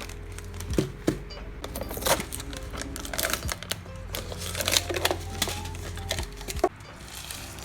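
Background music with a steady low bass line, overlaid by frequent sharp clicks and short crinkling rustles of small objects being handled, thinning out near the end.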